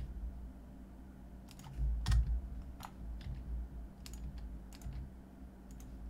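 Computer keyboard keys tapped in scattered, irregular clicks, a few at a time, over a low steady hum, with a dull low bump about two seconds in.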